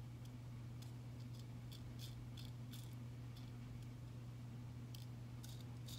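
Light, scattered clicks of metal tweezers picking up and setting small rhinestone crystals, over a steady low hum.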